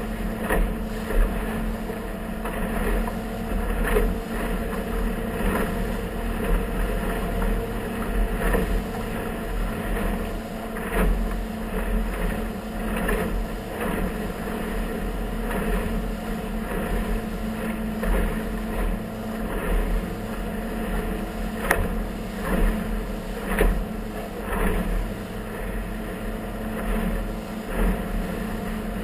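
A motorboat's engine running steadily under way, with water slapping against the hull in short irregular thumps every second or two as it runs through chop.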